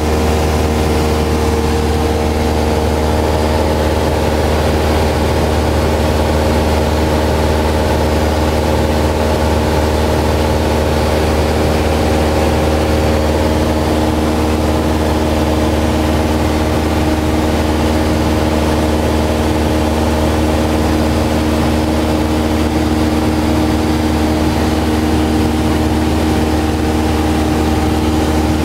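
Cessna 172's piston engine and propeller droning steadily at an even pitch and level, heard from inside the cockpit.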